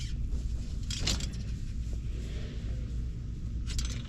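Kawasaki KLX110 pit bike being handled off a hitch-mounted carrier: short metallic clanks and rattles about a second in and again near the end, over a steady low rumble.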